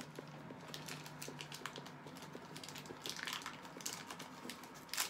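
Light crinkling and scattered small clicks of protective packaging being worked off a new handbag's strap, with a busier rustle a little past three seconds in and a sharp snap near the end.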